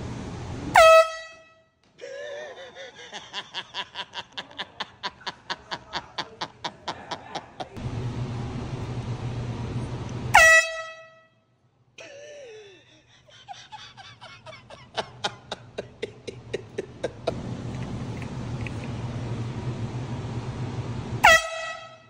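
Handheld canned air horn blasted three times, each a short, piercing, high blast, about ten seconds apart. Between the blasts come stretches of rapid, evenly spaced short pulses over a steady background hum.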